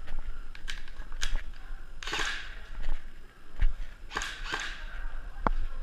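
An airsoft player's footsteps and gear moving on a loose rubber-crumb floor: several sharp clicks and knocks, with two longer scuffing swishes.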